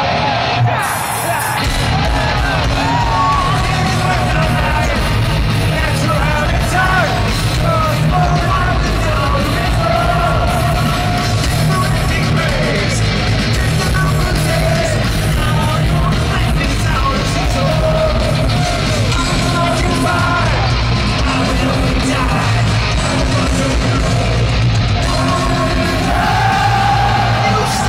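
Heavy metal band playing live in a domed stadium: distorted electric guitars, bass and drums at full volume, with a large crowd yelling and singing along.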